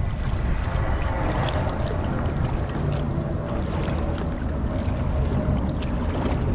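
Wind rumbling on the microphone with light water splashes from kayak paddling.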